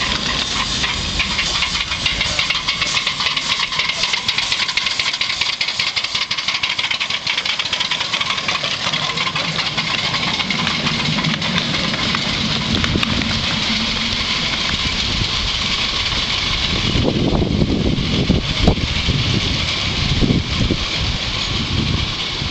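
Double-headed 7¼-inch gauge miniature steam locomotives pulling away, with a steady hiss of steam and quick exhaust chuffs, as the loaded passenger cars run past over the rails. Heavier low thumps come in over the last few seconds.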